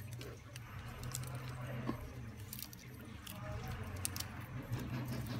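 Scattered light clicks and rustles of small smartphone parts being handled on a workbench, over a low steady hum.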